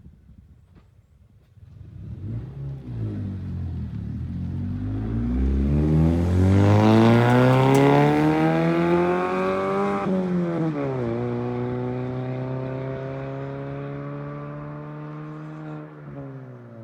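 Mazda CX-3 20S's 2.0-litre four-cylinder petrol engine through a straight-through dual exhaust with inner silencers, accelerating from a standstill: the exhaust note climbs steadily in pitch, drops sharply at a gear change about ten seconds in, holds in second gear, then falls away near the end as the throttle comes off.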